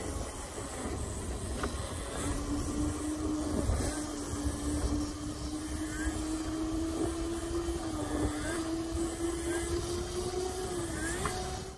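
Electric pit bike under way, its motor giving a steady whine from about two seconds in that creeps slowly up in pitch and dips briefly twice near the end. Wind and tyre rumble run underneath.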